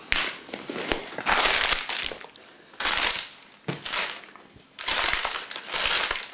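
Paper bag full of condom packets crinkling and rustling as it is handled and opened, in about six short bursts.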